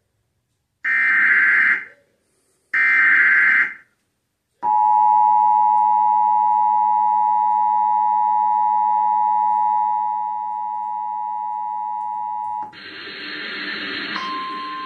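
Emergency Alert System broadcast opening: two short bursts of screeching digital header data, then the EAS two-tone attention signal, a steady harsh dual tone lasting about eight seconds. Near the end it gives way to a hissy relayed feed with a single steady tone coming in over it.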